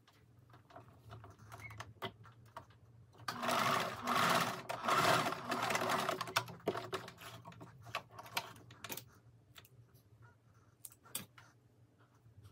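Domestic sewing machine stitching through linen in short runs from about three seconds in until about seven seconds in. Soft fabric rustling and small clicks come before and after the stitching.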